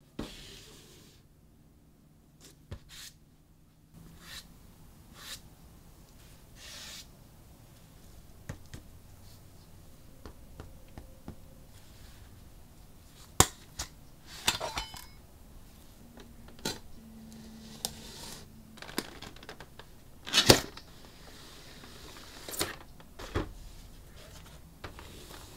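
Handling and opening of an action figure's cardboard and plastic packaging: irregular clicks, taps and short rustling, tearing noises, the loudest a brief burst about twenty seconds in.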